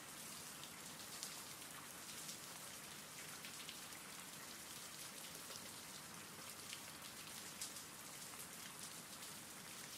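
Faint, steady rain: an even hiss sprinkled with small drop ticks.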